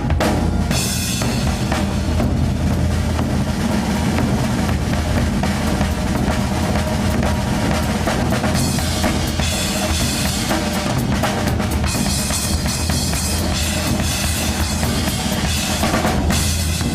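Big taiko drum and drum kit playing together in a dense, continuous rhythm, the deep taiko strokes under fast snare and kick. Heavy cymbal wash joins in over the second half.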